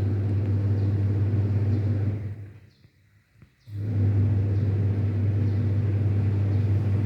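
Washing machine motor running through its wash cycle with a steady low hum. It cuts out about two and a half seconds in and starts again about a second later, the on-off pattern of the drum agitating in turns.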